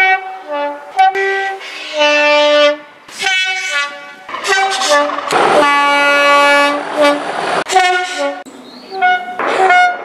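British Rail Class 37 diesel locomotives sounding their two-tone horns: a string of short and long blasts, switching between a low and a high note, the longest held about two seconds in the middle. Train noise runs under the blasts.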